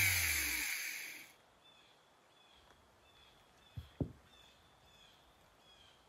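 A rotary tool with a felt polishing wheel buffing the steel axe head, its motor winding down with falling pitch and fading out over about a second. About four seconds in, two light knocks as steel nuts are set down.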